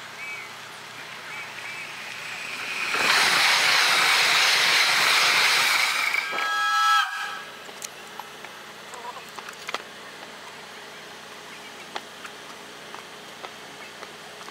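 A Taiwan Railways train goes by with a loud rushing noise for a few seconds and gives a short horn blast near the end, then the sound cuts off suddenly. The recording plays at double speed, which raises the pitch. Faint bird chirps come just before.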